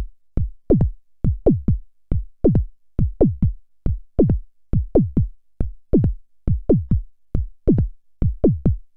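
Moog Rogue's self-oscillating filter played as a synth bass drum, stepped by a Korg SQ1 sequencer: a steady pattern of short kicks, about three a second, each dropping quickly in pitch. Each kick starts at a different pitch from the sequencer's CV.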